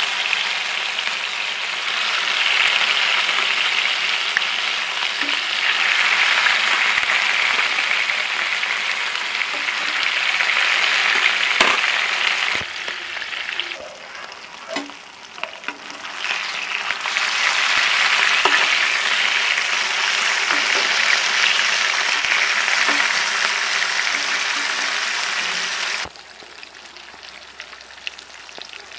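Hilsa fish steaks sizzling loudly as they fry in hot oil in a frying pan. The sizzle dips for a few seconds in the middle, where a few sharp clicks are heard, then drops suddenly to a much quieter level near the end.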